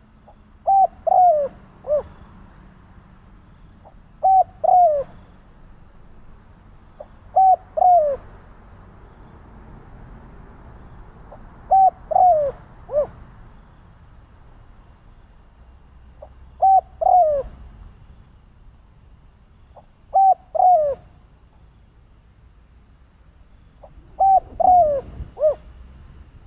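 Spotted dove cooing: seven phrases spaced about three to four seconds apart, each a quick run of two or three short falling coos.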